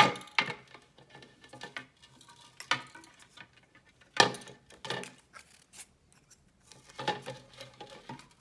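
Irregular taps and clicks of small decorative craft birds being handled and set down on a tray, the loudest knocks at the start and about four seconds in.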